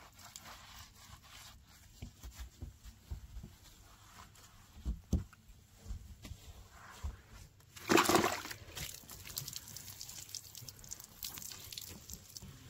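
Wet soapy sponge wiping a car's painted body panels by hand, with water dripping onto asphalt; faint, with scattered soft knocks and one brief, louder rush of noise about eight seconds in.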